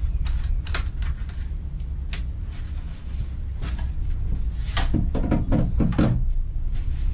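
Irregular knocks and clinks of tools and metal being handled on a workbench, with a quick run of knocks about five seconds in, over a steady low rumble.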